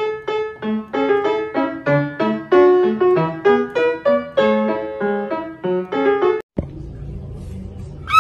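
Piano music: a single note repeated, then a melody joins over lower bass notes. It cuts off abruptly about six and a half seconds in and leaves a low, steady background rumble.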